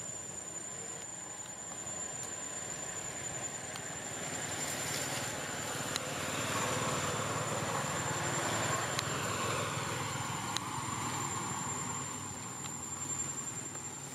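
A road vehicle passing by: its noise swells, peaks midway, then fades, with its pitch dropping as it goes past. A steady high-pitched insect drone runs underneath.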